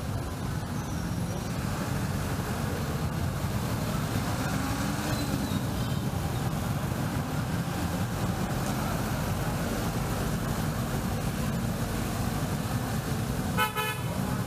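Steady city street traffic, with vehicle engines running and passing. A brief horn beep sounds near the end.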